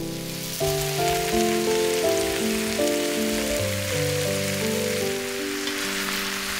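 Sliced tomatoes, zucchini and red peppers sizzling in hot oil in a frying pan, a steady dense hiss, with background music of held notes playing over it.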